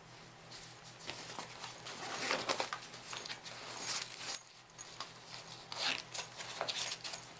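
Small gear being handled and rummaged out of a bag: an uneven run of light clicks, knocks and rustles, busiest about two and a half seconds in.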